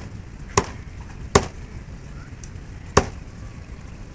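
Cleaver chopping fish on a wooden log chopping block: three sharp chops at uneven intervals, the last after a longer pause.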